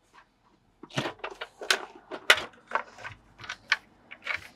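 Irregular plastic clicks and knocks as the front cover of a BG Sync EV Wall Charger 2 is worked loose and lifted off the charger's casing, starting about a second in.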